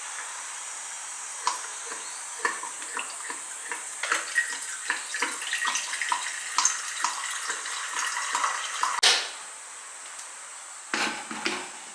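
Water running in a sink, with a series of light clinks and knocks as kitchen things are handled under it, and a brief louder rush of water about nine seconds in.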